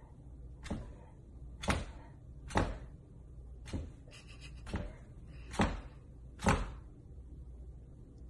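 A golden retriever's tail wagging and thumping on a hardwood floor: seven dull knocks, roughly one a second, with the louder ones near the middle and towards the end.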